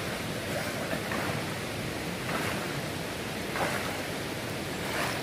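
Steady rushing of water from the river and cascades at a waterfall.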